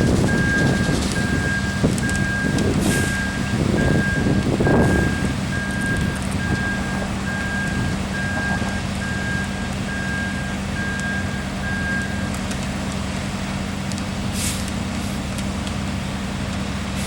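Ready-mix concrete truck's diesel engine running, heavier rumbling for the first few seconds, with its reversing alarm beeping steadily about twice a second until it stops about twelve seconds in.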